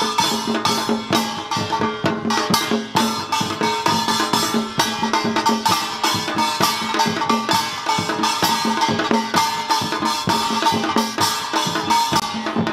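Korean samulnori percussion ensemble playing fast: kkwaenggwari small brass gongs clanging in quick strokes over janggu hourglass drums and buk barrel drum, with a steady ringing gong tone underneath.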